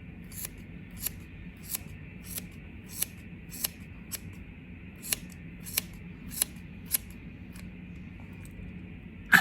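Scissors snipping through hair to cut bangs: a crisp snip about every two-thirds of a second, stopping about seven seconds in, over a faint steady hum.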